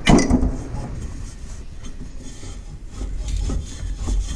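A belt pulley under a Ferris IS1000 zero-turn mower spun by hand with the belt off. It starts with a knock, then gives a steady low rumble with a faint rub as its bearing turns, and a few light ticks near the end. This is a check on the bearing's wear, and from the noise it is hard to tell whether the bearing is bad.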